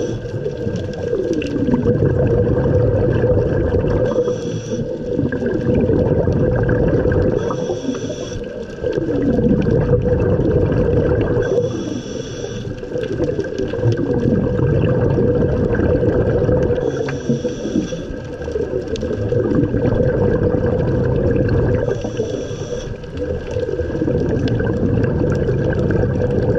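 Scuba breathing heard underwater through a regulator: a short hiss of inhalation about every four to five seconds, alternating with the rumbling gurgle of exhaled bubbles, over a steady low hum.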